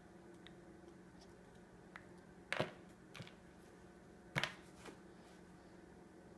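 A few short, light taps and clicks of small hands on a plastic high-chair tray as a baby picks up pieces of food, two of them louder, about two and a half and four and a half seconds in, over a faint steady hum.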